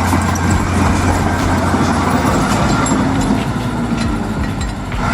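Heavy diesel engine of a loaded logging truck labouring up a steep grade, a steady low drone with a rough noisy edge.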